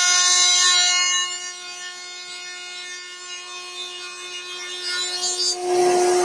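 Bosch GMF 1600 CE router running at speed in a router table, with the dust extraction on, giving a steady high whine as its mitre lock cutter cuts a board fed past it. The sound drops quieter about a second in and comes back louder near the end with a rougher cutting noise added to the whine.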